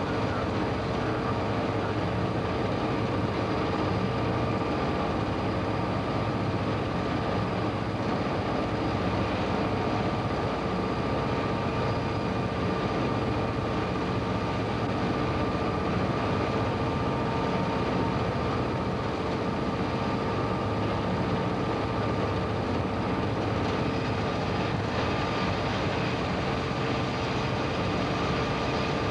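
Diesel locomotive running at speed, heard from inside its cab as a steady drone of engine and rolling noise with a faint constant whine.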